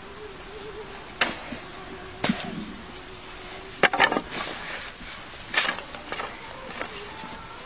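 Dry wooden sticks knocking and clattering against each other as they are gathered and laid down for a fire: about half a dozen sharp, irregular knocks.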